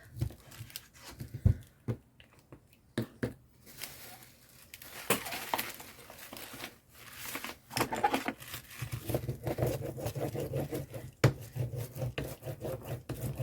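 Paper and cardboard packaging crinkling and rustling as it is handled and pressed down, with scattered sharp clicks and knocks.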